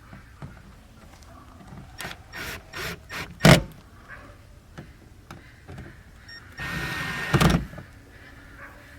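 A run of knocks and clatter, the loudest a hard knock about three and a half seconds in, then a cordless drill whirring for about a second.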